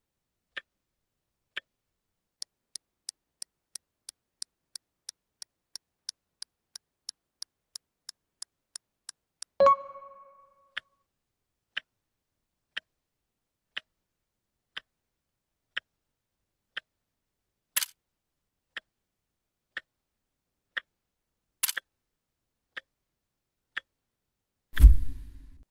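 Clock-ticking sound effect, about one tick a second, quickening to about three ticks a second for several seconds. A short two-tone ding comes about ten seconds in, and a deep thump comes near the end.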